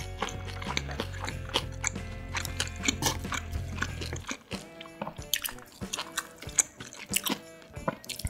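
Close-miked eating sounds of grilled marinated beef short ribs (LA galbi): wet chewing and biting with many small sticky mouth clicks. A low hum underneath stops about halfway through.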